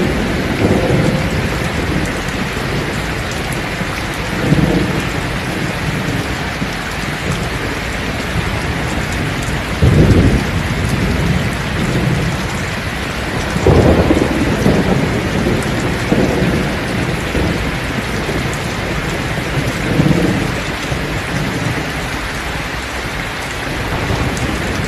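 Heavy rain falling steadily on a thatched roof, with rolls of thunder rumbling in and out several times. The loudest thunder comes about ten seconds in.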